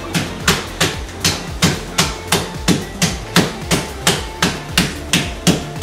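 Raw chicken being pounded flat in a plastic bag: a steady run of sharp strikes, about three a second.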